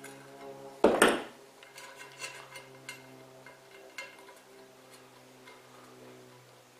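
A metal wing nut being turned off a toilet tank bolt by hand: faint scattered metallic ticks and clicks against the porcelain tank, with one louder clank about a second in.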